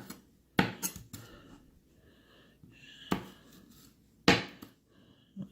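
Santoku kitchen knife knocking on a cutting board, about six sharp, irregularly spaced knocks, the loudest about half a second in and again past the four-second mark.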